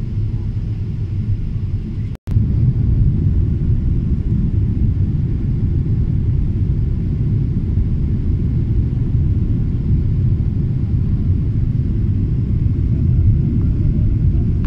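Steady low rumble of a jet airliner's cabin noise, heard from inside the cabin on the descent to landing. The sound cuts out for an instant about two seconds in, then carries on slightly louder.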